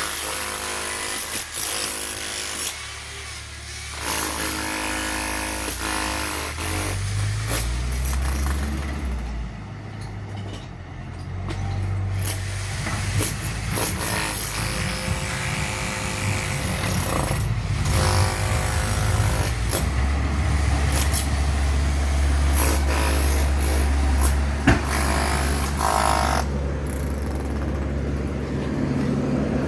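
John Deere 310 backhoe loader's diesel engine running and revving up and down as it works. A whining tone comes and goes over the engine, along with scattered clanks, and there is one sharp knock near the end.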